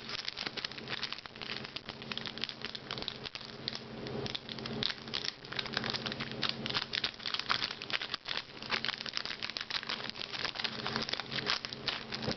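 Crinkling and tearing of a foil Pokémon booster pack wrapper being opened by hand, a dense, irregular crackle.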